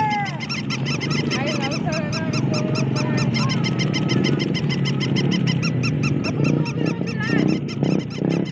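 Electronic cheeping from battery-powered plush toys: a fast, even run of short chirps, many a second, over a steady low background noise.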